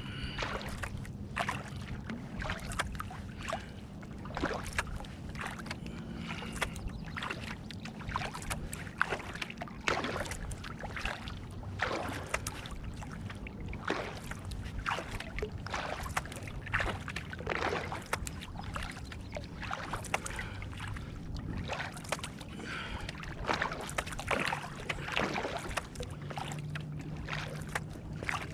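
Kayak paddle blades dipping and splashing in calm lake water, a stroke about every half second to a second, over a low steady hum.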